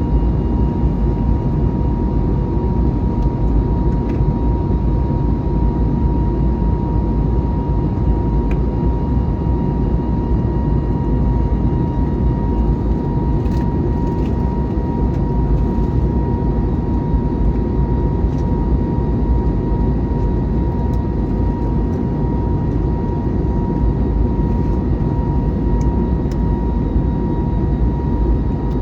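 Steady cabin noise of an Airbus A321neo with Pratt & Whitney PW1100G geared turbofans: a dense, even low rumble of engines and airflow with a thin steady whine, unchanging throughout.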